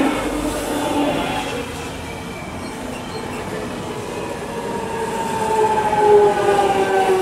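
Jubilee line 1996 Stock tube train running in beside the platform: rumbling wheels and a motor whine whose several tones slowly fall in pitch as the train slows.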